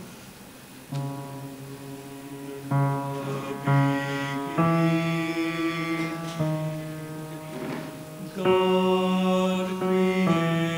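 Slow music of held notes, each lasting a second or two before stepping to the next, coming in about a second in.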